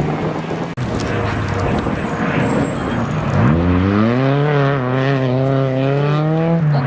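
Rally car engine under hard load. After a short burst of a car at steady revs, gravel and tyre noise fill about three seconds. Then the VW Golf II's engine climbs steeply in pitch as it accelerates out of the corner, holds high revs, and drops near the end at a gear change.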